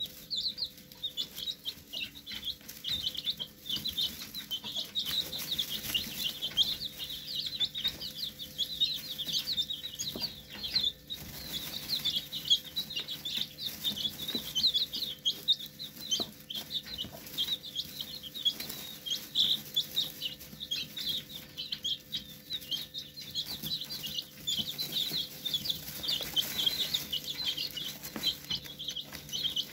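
A brood of young chicks peeping continuously, many short high chirps overlapping without a break, with scattered light taps and a faint steady hum underneath.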